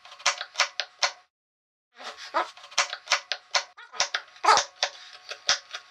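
Kitchen knife chopping an onion on a cutting board: a run of sharp, even strokes, about three a second, with a short break after about a second.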